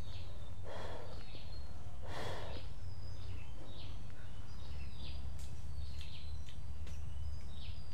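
Birds chirping in short high calls, many of them dropping in pitch, over a steady low rumble, with two short rustles about one and two seconds in.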